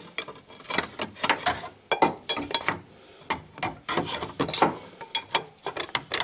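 Homemade flat steel holding wrench being worked onto the 50 mm hex of a Honda D17A crankshaft pulley: a quick, irregular run of metal clinks and scrapes as it is wiggled to seat fully on the hex.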